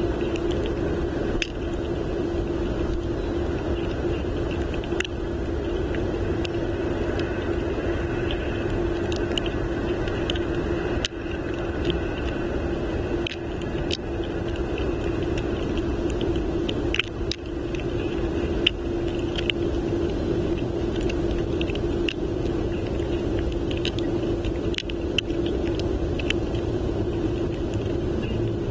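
Steady low rumble of snowstorm wind on the outdoor nest-cam microphone, with a constant hum and scattered small ticks and taps.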